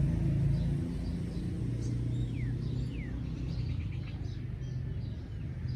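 A steady low engine rumble, with faint bird chirps above it: two quick falling chirps about two and three seconds in, then a short rapid trill.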